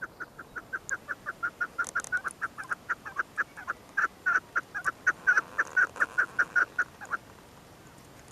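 A bird's rapid run of short, identical calls, about five a second, going on for some seven seconds and then stopping.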